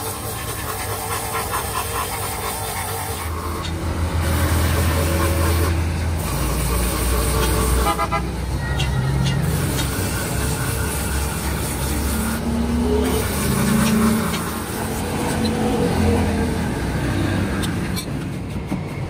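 Road traffic going by, with a vehicle horn tooting. The engine rumble swells several times as vehicles pass.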